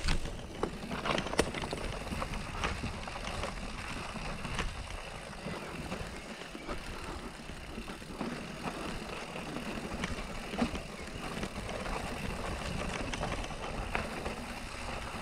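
Mountain bike rolling down a wet, rocky trail: steady tyre and ground noise over stones and leaves, with scattered sharp knocks and rattles from the bike as it hits rocks, the sharpest about a second and a half in.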